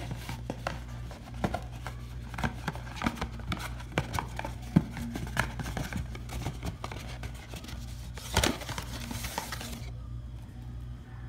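Hair-dye kit packaging being handled: plastic tube and bottle clicking and tapping on a table, with paper and cardboard crinkling, and a longer rustle a little past eight seconds in. A steady low hum lies underneath.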